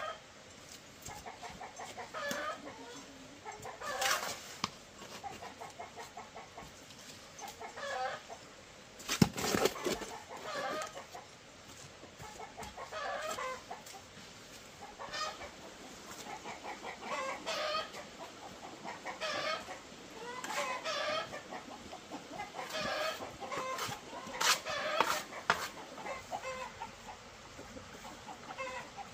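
Chickens clucking repeatedly, short calls every second or two, with a few sharp knocks, the loudest about nine seconds in.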